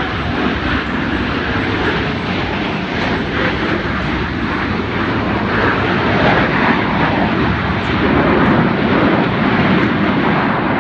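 Fixed-wing aircraft engine noise as a plane flies by, a loud steady rush that grows a little louder in the second half and drops away at the very end.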